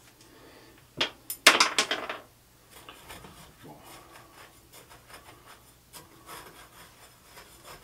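Small pebbles and gritty bonsai substrate clattering and scraping. There is a sharp click about a second in, then a short burst of rattling grit, then light scattered scratching and ticking.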